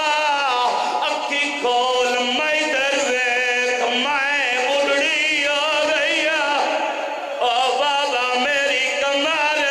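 A man's voice chanting a majlis recitation in a melodic, sung delivery with held, wavering notes, amplified through a microphone. The voice dips briefly about seven seconds in, then carries on.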